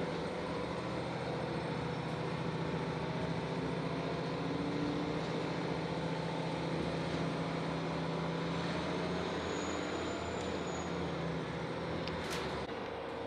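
Diesel railcar of a KiHa 40 and KiHa 150 local train running at low speed, heard from inside the cabin: a steady engine hum over wheel-on-rail rumble. Near the end there is a single sharp click and the engine note drops away.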